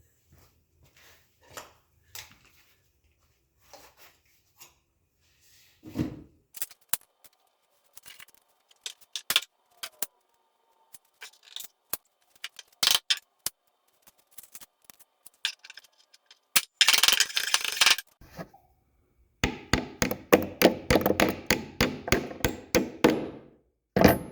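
Tool work on a wall-mounted rack: scattered sharp knocks, clicks and clatter, then near the end a power tool running in dense bursts for several seconds, followed by one last loud knock.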